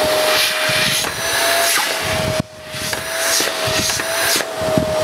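Hoover Eco G (Telios) bagged cylinder vacuum cleaner's 1100-watt motor running with a steady whine over the rush of air while the hose end is blocked by hand. The motor tone wavers slightly as the suction relief valve lets air in under the blockage. About halfway through, the air rush drops out suddenly and builds back up over about half a second.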